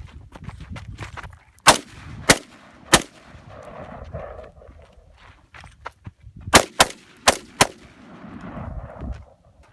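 A DPMS Panther Oracle AR-15 rifle fired semi-automatically: three sharp shots about two-thirds of a second apart, then after a pause of about three seconds four more in quicker succession.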